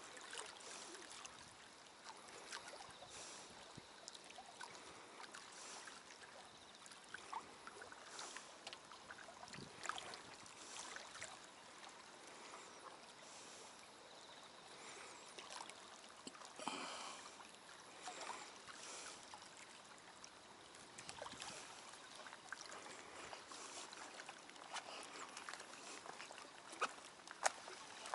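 Small waves lapping against concrete blocks at the water's edge, a faint steady wash with scattered light clicks and a sharper knock near the end.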